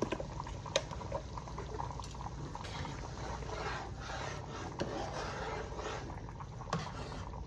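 Tomato gravy simmering in a pot, with a few sharp clinks of a utensil.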